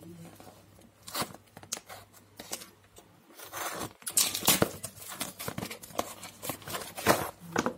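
Utility knife cutting through a corrugated cardboard box, in a series of irregular scraping, crunching strokes, loudest about four seconds in and again near the end.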